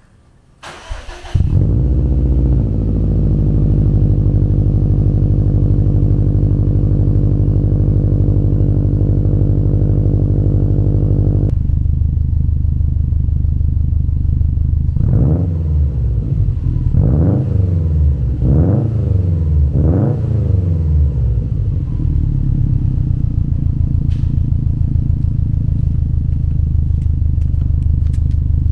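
2019 Subaru WRX STI's turbocharged flat-four boxer engine breathing through an aftermarket Tomei exhaust, cold-started: the starter cranks for about half a second, the engine catches and runs at a high cold-start idle, and the idle settles lower about eleven seconds in. Four quick throttle blips then rev it up and back down before it returns to a steady idle.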